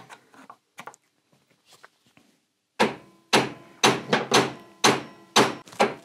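Hammer blows on a steel drift, driving a steering head bearing race out of a 1978 Triumph Bonneville T140V's steering head: a steady run of about seven sharp, ringing strikes, two a second, starting nearly three seconds in after a few faint handling sounds.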